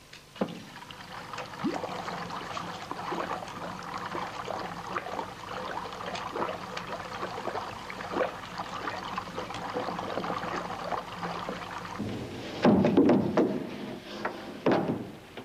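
Bubbling, fizzing liquid, a continuous crackle with many small pops, as the potion takes effect. Louder bursts come about thirteen seconds in and again a second or so later.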